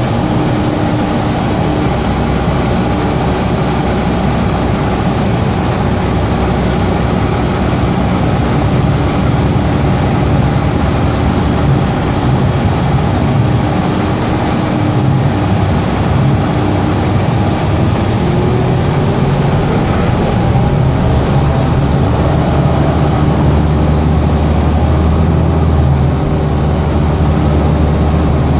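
Cabin noise of a Gillig Advantage hybrid transit bus under way, with its air conditioning running: a steady hum and road rumble, with a tone that rises in pitch about 18 seconds in and a deeper low rumble over the last several seconds.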